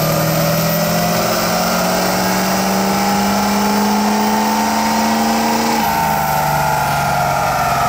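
Ford 6.0 L Power Stroke turbo-diesel V8 pulling at full load on a chassis dyno, its pitch climbing steadily for about six seconds, then dropping suddenly as the pull ends.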